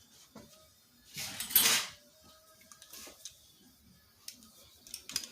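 Small tools and rivet hardware handled at a workbench: a few faint light clicks and clinks, with one short hiss of air a little over a second in.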